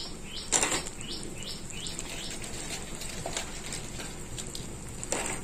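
Fried gram-flour pieces (daade) dropped into a thick, simmering kadhi, with soft splashes about half a second in and again near the end. Throughout, short high chirps repeat about three times a second.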